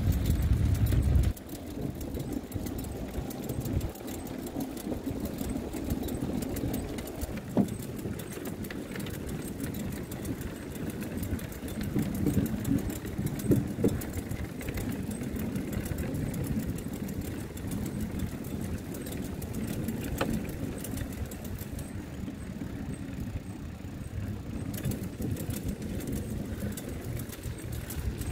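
Bicycles rolling along a wooden plank boardwalk: a steady rumble of tyres on the boards with scattered light clicks and rattles. A heavier low rumble stops suddenly about a second in.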